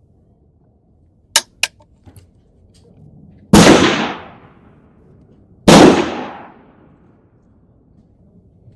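Two loud gunshots about two seconds apart, each trailing off over about a second, with two sharp clicks a couple of seconds before them.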